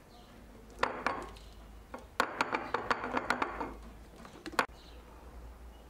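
Aluminium foil and a ceramic plate being handled on a table: two sharp clicks about a second in, then a rapid run of crinkling clicks for about a second and a half, and one last sharp click near the end.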